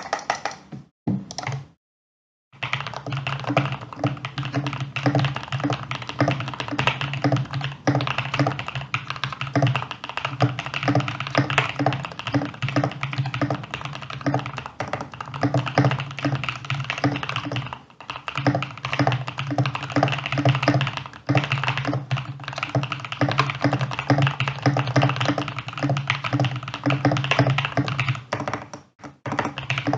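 Fast typing on a Mode SixtyFive custom mechanical keyboard with lubed Prevail Epsilon linear switches and PBT keycaps, giving a dense, continuous run of keystrokes. A few separate keystrokes and short silences come first, then steady typing from a couple of seconds in, with brief pauses near the middle and near the end.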